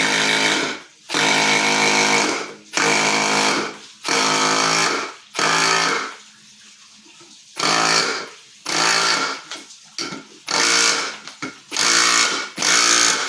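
Milwaukee M18 Fuel Surge hydraulic impact driver driving a lag bolt into wood in about ten short bursts, each a steady mechanical hum with hiss, cut by brief pauses and a longer pause about six seconds in. The tool keeps stopping under this load, which the owner puts down to its hydraulic fluid.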